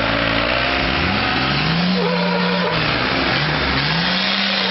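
Diesel engine revving hard under heavy load in a tug-of-war pull, twice climbing in pitch and then holding high.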